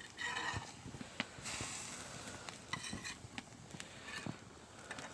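Beef tripe sizzling in a large metal pot over a wood fire, stirred by a utensil that scrapes and clicks against the pot. The hiss swells louder for a moment about a second and a half in.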